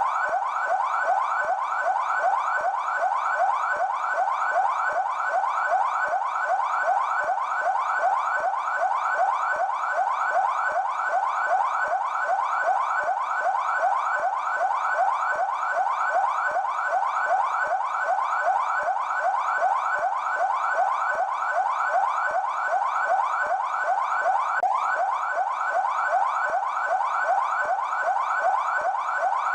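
Brazilian military police car's electronic siren sounding its yelp tone: fast, evenly repeating rising whoops, steady and unbroken.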